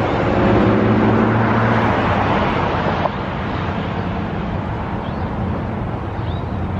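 Road traffic passing close by. A vehicle's engine hum and tyre noise are loudest in the first two seconds, then ease into steady road noise.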